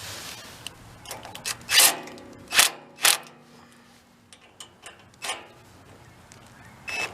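Clicks and knocks of hand tools and generator parts being handled during work on the engine's air intake: four louder knocks among lighter ticks, with a short lull near the middle.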